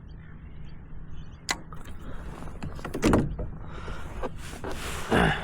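Newport NV-series electric trolling motor running with a steady low hum as it drives the kayak, with a sharp click about a second and a half in and louder rushing swells around three and five seconds in.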